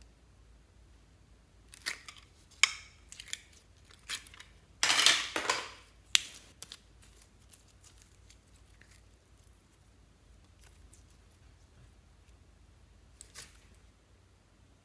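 A plastic slime container being opened and clear blue glitter slime being pulled out of it: sharp clicks and sticky crackling, with a loud peeling, squelching noise about five seconds in. Then mostly quiet, with a brief crackle near the end as the slime is handled.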